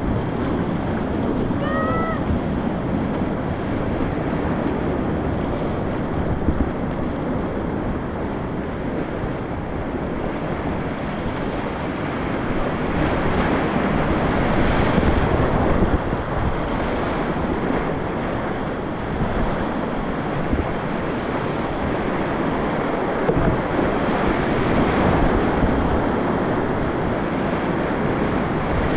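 Steady rushing of a mountain stream, an even, unbroken noise that swells a little now and then, with wind on the microphone.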